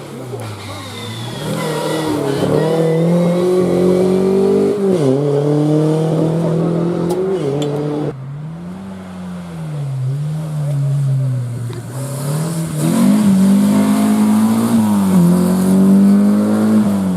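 Rally car engines revving hard on a stage, the pitch climbing and dropping again and again with throttle lifts and gear changes; about eight seconds in the sound cuts abruptly to another stretch of a car revving, which grows loud again near the end.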